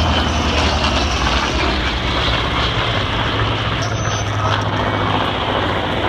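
Douglas A-1 Skyraider's Wright R-3350 radial engine droning steadily as the plane flies past overhead.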